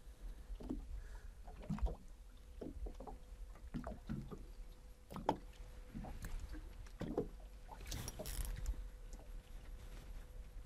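Water lapping against the hull of a drifting boat, with soft irregular knocks about once a second over a low wind rumble.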